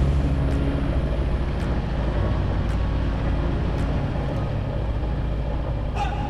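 Sailboat's inboard diesel engine running steadily under way, a low, even drone.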